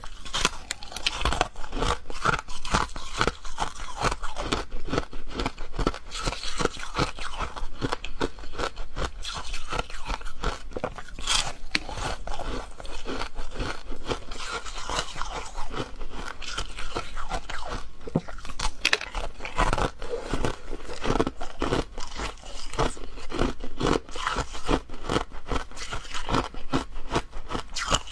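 Hard-frozen coloured ice being bitten and chewed: a dense, continuous run of crunches, with one especially sharp crack about eleven seconds in.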